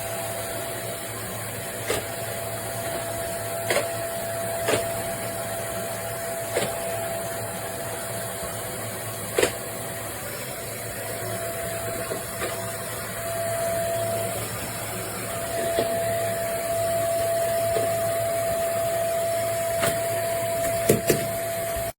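An 800W bagless cylinder vacuum cleaner running steadily, a constant whine over its motor and airflow noise, with a few sharp clicks and knocks, then cutting off abruptly at the end.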